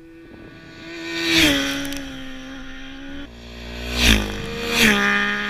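Sport motorcycles passing at speed close by on a race track, about three passes. Each pass is an engine note that swells and then drops in pitch as the bike goes by.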